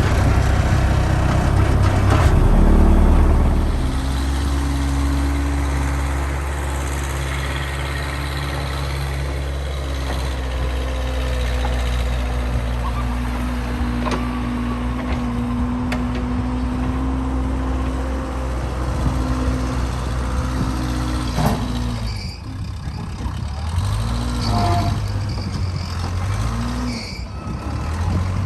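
Case 580C backhoe's engine running steadily, loudest in the first few seconds just after it catches. Near the end its speed dips and rises several times.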